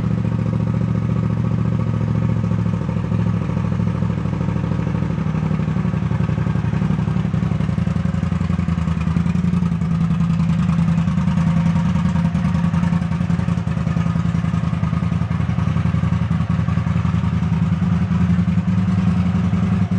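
Honda CX500's V-twin engine idling steadily after its carburettor tune-up.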